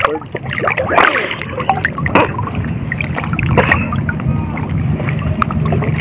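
Seawater sloshing and splashing around a person wading waist-deep, with a few brief sharper splashes.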